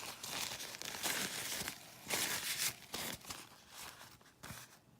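Rustling and scraping of small lock parts being handled close by, in several bursts about a second long with a few light clicks.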